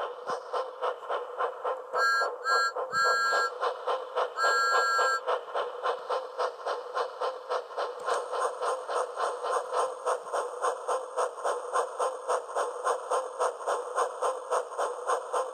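Steam-train sound effect: steady rhythmic chugging at about four or five chuffs a second. Two seconds in, a two-note whistle toots three short times, then once longer.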